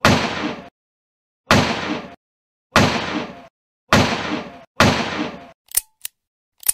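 Revolver gunshots dubbed onto the film: five sudden shots in about five seconds, each with a short echoing tail, followed near the end by a few short, sharp clicks.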